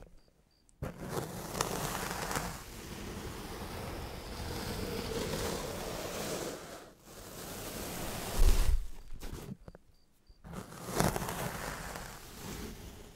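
Sand being cut close to the microphone: a steady rustling hiss of grains sliding and crumbling, broken by two short silent pauses. A single low thump is heard about two-thirds of the way through.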